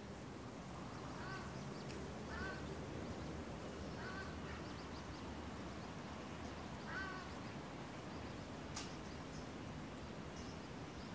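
Faint outdoor background hiss with a few short bird calls scattered through, and one sharp click near the end.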